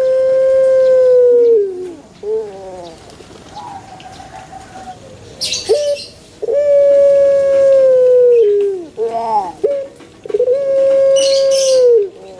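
Puter dove (Barbary dove) cooing its long 'pelung' coo: three long, level coos of about two seconds each, dipping in pitch at the end, with short notes between them. Two brief high-pitched bursts of another sound come in around the middle and near the end.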